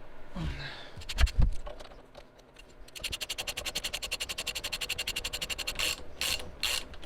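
Ratchet wrench clicking quickly and evenly, about a dozen clicks a second, then in slower, louder strokes near the end. Two heavy knocks come about a second in.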